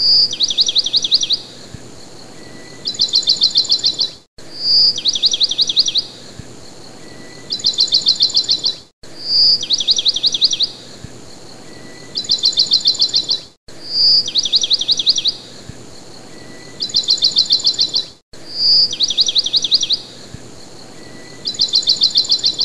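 Songbird song in rapid high trills, about ten notes a second, each phrase opening with a short high note. The same phrase repeats about every four and a half seconds as a loop, with a brief dropout at each seam.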